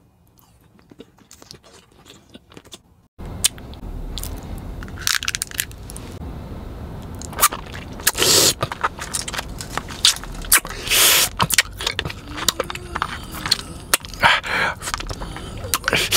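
Close-miked human chewing. First come quiet clicks and crunches as a square of chocolate is bitten. About three seconds in a steady low hum starts abruptly, and closed-mouth chewing follows with many small clicks and several loud noisy bursts.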